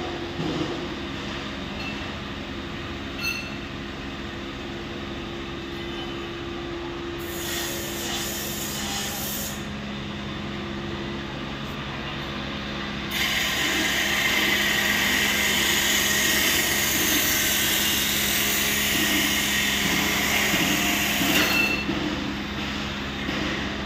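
Steady low hum of workshop machinery. A loud, steady hiss cuts in suddenly about halfway through and stops just as suddenly some eight seconds later.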